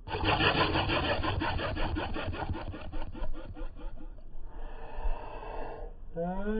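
A person making a rattling mouth sound effect: a rapid train of clicks that slows down over about four seconds, then a breathy hiss.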